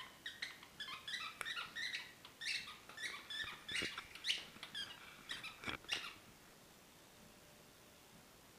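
A dog chewing a squeaky plush toy: a quick, uneven run of short, high squeaks with a few soft knocks, stopping about six seconds in.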